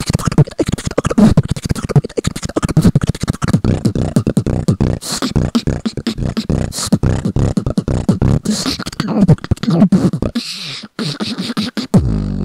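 Solo beatboxing close into a microphone: a fast, dense run of percussive mouth sounds with short low pitched bass notes between them.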